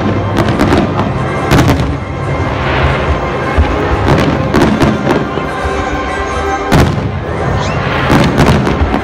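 Aerial fireworks shells bursting one after another, a sharp bang about every second, with the loudest near the end, over music.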